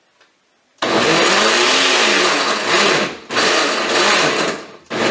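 Combined blender and food processor pulsed twice, chopping whole peeled tomatoes, onion, jalapeños and garlic into a chunky salsa. It starts about a second in, runs a couple of seconds, stops briefly, then runs again, its motor pitch wavering as the blades hit the food.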